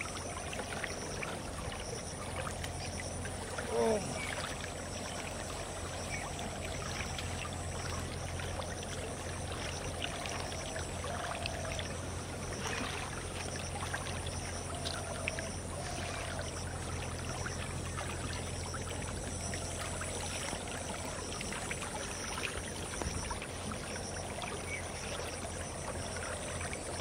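Shallow canal water flowing and trickling steadily, with a short vocal sound about four seconds in.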